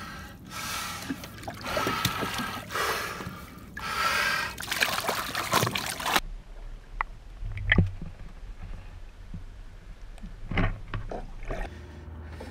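Several heavy, rasping breaths through a snorkel tube from a diver in cold water, with splashing at the water's surface. About six seconds in the sound cuts to a quieter stretch with a low rumble and a few scattered knocks.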